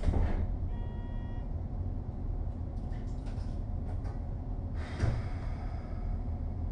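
Sounds inside a Keikyu 2000 series train car: a steady low rumble, with a knock at the start and another about five seconds in. A brief chime-like tone sounds about a second in, and a few clicks around three to four seconds.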